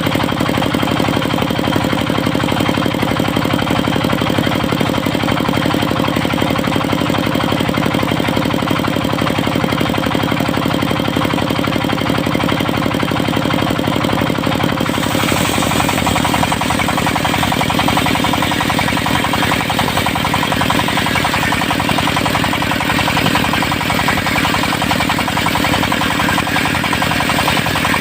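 Diesel engine of a mobile circular sawmill running steadily with a fast, even pulse. About halfway through, a higher hissing noise joins in and carries on over the engine.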